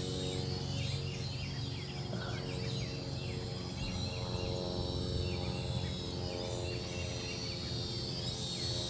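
Small toy quadcopter's propeller motors humming steadily as it hovers, a constant multi-toned whine that holds its pitch. Birds chirp over it again and again.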